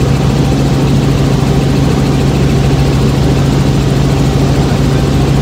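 Helicopter in flight: the engine and rotor make a loud, steady drone with a strong low hum.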